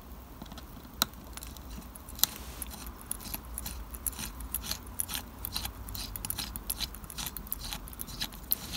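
Hand pin vise with a 0.6 mm drill bit twisted back and forth to drill a small hole in a model building's wall: a run of small, irregular clicks and ticks, several a second. There are two sharper clicks in the first couple of seconds.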